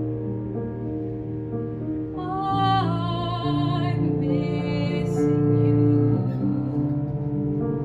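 Classical singing with grand piano accompaniment: a woman's operatic voice enters about two seconds in and holds a phrase with vibrato until about six seconds, over the piano's sustained chords, which carry on alone after she stops.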